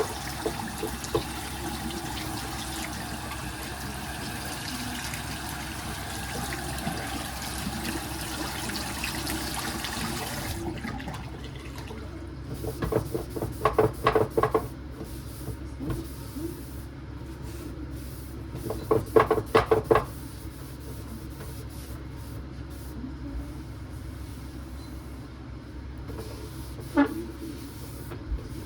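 Water running from a tap, shut off abruptly about ten seconds in; then two short bursts of clattering knocks and a single knock near the end, like dishes or kitchenware being handled.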